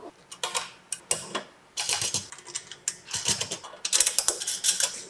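Sheet-steel stand legs and rails clinking and rattling against each other as they are hooked together by their square slots and handled: several quick clusters of sharp metal clicks and knocks.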